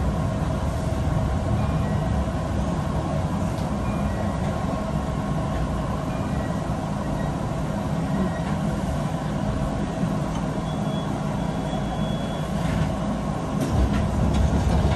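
Keihan 1000 series electric train heard from inside the driver's cab as it pulls away and runs along the line: a steady rumble of motors and wheels on rail, with a few clicks and a louder rumble near the end.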